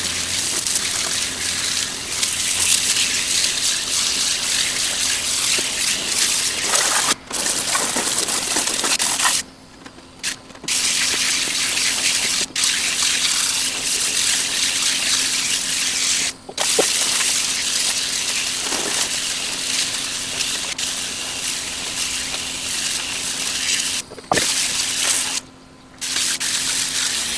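A jet of water spraying through an air conditioner's condenser coil to wash out dirt and leaves: a steady loud hiss that stops briefly a few times, with a faint steady hum underneath.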